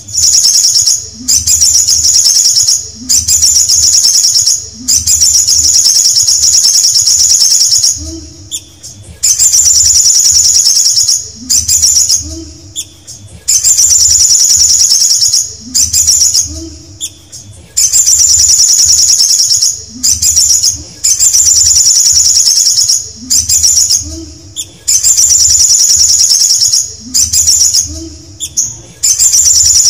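Male olive-backed sunbird singing close to the microphone: loud, high-pitched, rapid trilled phrases, each a second or two long, repeated every couple of seconds with short pauses between.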